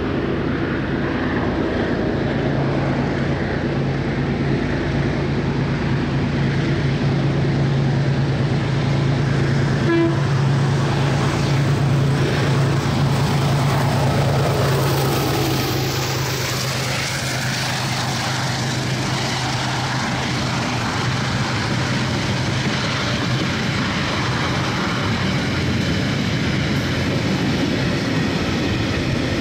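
Diesel-electric locomotive working under heavy power, a steady deep engine drone. The note shifts in pitch about halfway through.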